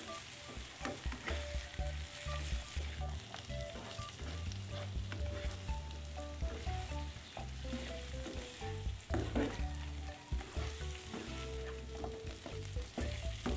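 Fried chicken wings sizzling in a non-stick frying pan as a spatula stirs and turns them through chili paste, with scattered scrapes and knocks of the spatula against the pan.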